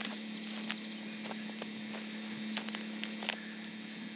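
A steady low electrical hum with faint, irregular clicks and crunches scattered through it.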